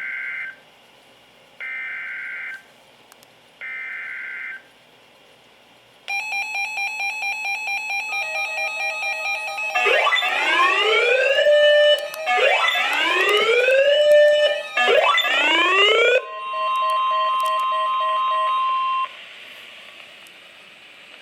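Emergency Alert System tones for a severe thunderstorm warning on NOAA Weather Radio. Three short buzzy data bursts about two seconds apart are followed by a fast pulsing beep, then three long rising siren-like sweeps, then a steady alarm tone that cuts off near the end, leaving radio hiss.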